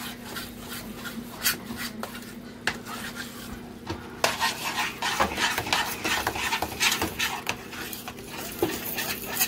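A metal utensil stirring in a stainless steel saucepan, scraping and clinking against the pot in quick strokes. The clinks are sparse at first and come thick and fast from about four seconds in. Near the end a wooden spoon turns ground beef in a frying pan.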